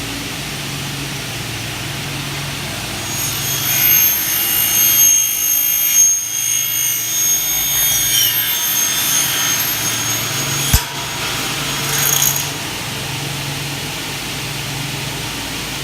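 Maccom M88 double-head aluminium cutting saw: the motor runs with a steady hum, and a few seconds in the spinning blade cuts through an aluminium profile for about nine seconds with a high-pitched whine. A sharp click comes near the end of the cut, then the saw runs on with the hum alone.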